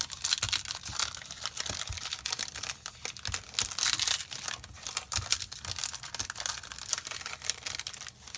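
A Yu-Gi-Oh Lightning Overdrive booster pack's foil wrapper being torn open and crinkled by hand: a continuous crackling of many small crinkles that stops near the end.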